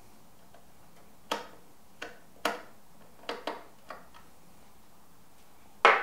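Small, irregular clicks and ticks of a Phillips screwdriver driving screws that fasten a burr grinder's plastic gearbox and motor assembly to its frame, about six light clicks in a few seconds. A louder single knock comes near the end.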